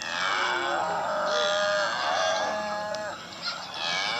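Cow mooing: one long, high-pitched call that falls away about three seconds in, then a second call starting near the end.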